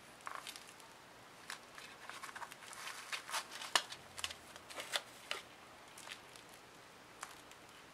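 Thin clear plastic wrapping crinkling in the fingers as a wrapped wristwatch is handled: an irregular run of sharp crackles, busiest in the middle and sparse toward the end.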